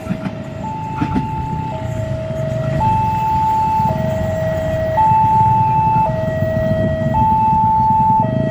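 Railway level-crossing alarm giving a two-tone warning, alternating between a lower and a higher tone about once a second, over the low rumble of a passing passenger train.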